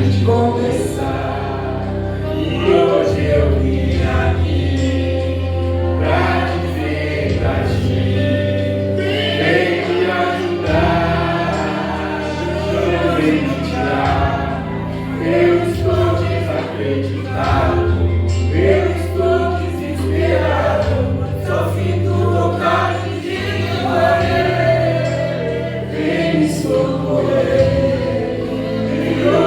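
Gospel song: voices singing over an instrumental backing with sustained bass notes.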